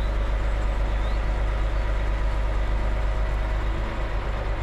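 Diesel engine of a lorry-mounted Hiab crane running steadily under load while the crane swings and lowers a locomotive wheelset into place.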